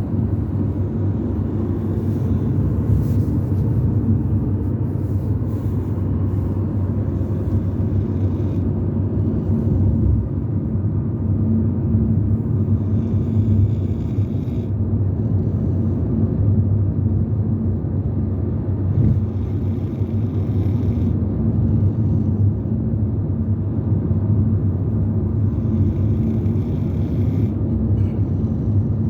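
Steady low rumble of a car on the move, heard from inside the cabin: engine and tyre road noise.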